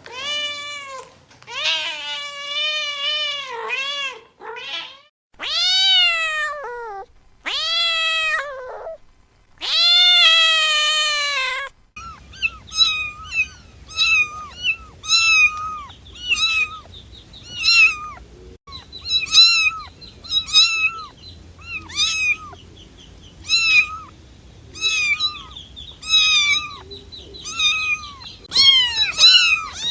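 Domestic cats meowing: first a string of long, drawn-out meows, then about twelve seconds in a switch to a different cat giving short, higher-pitched meows about once a second over a faint background hum.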